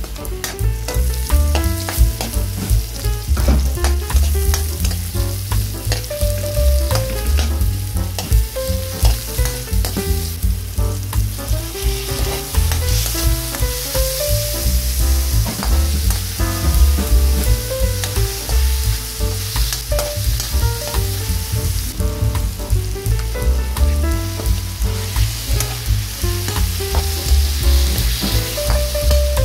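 Garlic, onions and then tomatoes and shrimp sizzling in hot oil in a wok, with a spatula stirring and scraping across the pan throughout.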